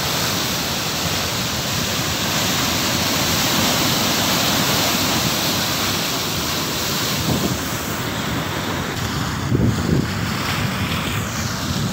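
Fast, muddy floodwater rushing down a concrete spillway channel after heavy rain: a steady, loud rush of water. Near the end the rush thins a little and wind gusts on the microphone.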